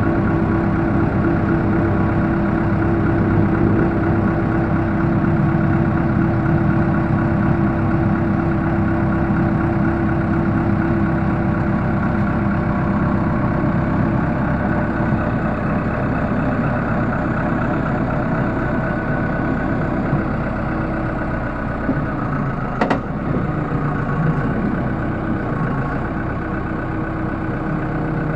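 Case 580L backhoe's diesel engine running steadily, near idle, with one sharp click about two-thirds of the way through.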